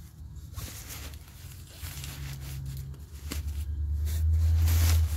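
Nylon carry bag and folded pop-up tent fabric rustling and sliding as the tent is pulled out of the bag. Under it runs a low steady rumble that grows louder in the second half.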